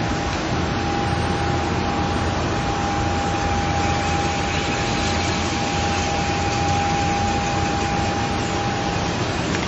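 Steady rushing outdoor background noise, with a steady high-pitched whine running through it that cuts off about nine seconds in.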